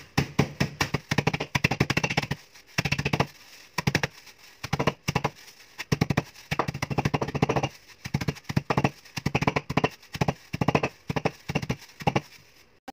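Graham crackers in a plastic sandwich bag crushed under a wooden rolling pin: repeated bursts of rapid crunching and crackling, each stroke lasting under a second with short pauses between.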